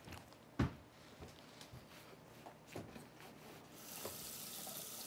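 Kitchen clatter: a sharp knock about half a second in and another near three seconds, with a few light clicks. Then, near the end, a kitchen tap is turned on and water runs into the sink with a steady hiss.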